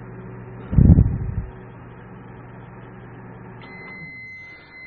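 Admiral microwave oven running with a steady hum, with a loud low thump about a second in. Near the end the hum stops and the oven gives one long beep, signalling that the cooking time is over.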